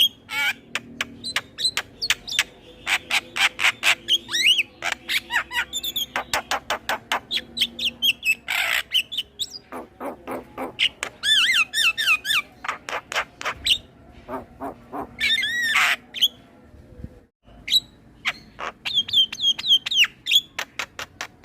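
Male Javan myna singing a varied song full of mimicked calls: fast runs of sharp clicking notes mixed with whistled and warbling phrases that glide in pitch. There is a brief pause about four seconds before the end.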